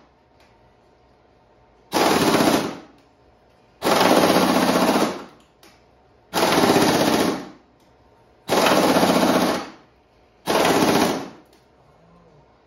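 Impact wrench hammering on a tight truck cab mount bolt in five bursts of about a second each, with short pauses between; really loud.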